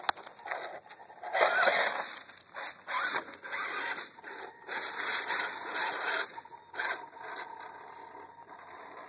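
RC rock crawler climbing over boulders: its motor and drivetrain whine in short, irregular bursts as it works, with tyres scraping on rock and dry leaves crackling under it.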